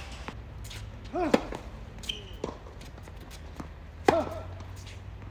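Tennis ball struck by rackets during a rally: two sharp, loud hits a little under three seconds apart, with softer ball bounces between them.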